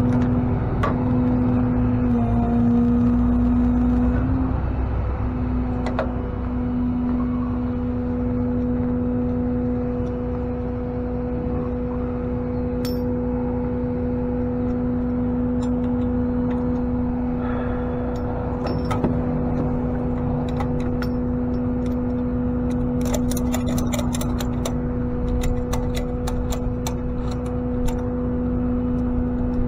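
Truck running at a steady pace: a constant low drone with a steady humming tone. A quick run of light clicks comes near the end.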